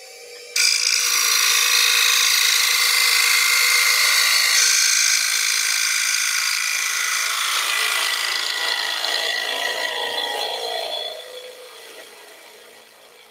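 Bowl gouge (a bottom feeder) cutting the inside bottom of an ash bowl spinning on a wood lathe: a steady hiss of shavings that starts suddenly about half a second in. It fades away over the last couple of seconds as the final light cut finishes.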